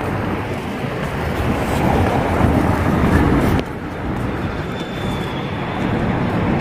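Steady street noise of road traffic, with wind rumbling on the phone's microphone. It eases slightly about three and a half seconds in.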